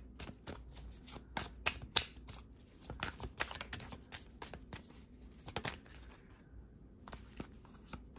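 A deck of tarot cards being shuffled from hand to hand, the cards snapping and clicking against each other in quick, irregular clicks, with a brief lull about six and a half seconds in.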